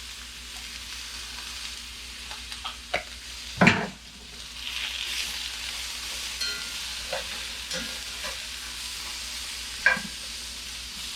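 Sliced yellow squash and sugar snap peas sizzling in olive oil in a frying pan as they are stirred. A few sharp knocks of the utensil against the pan break through the sizzle, the loudest a little under four seconds in and another near the end.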